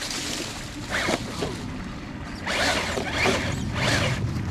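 RC rock crawler's electric motor and drivetrain whirring in short bursts of throttle, the pitch rising and falling with each burst: a brief one about a second in, then a longer one.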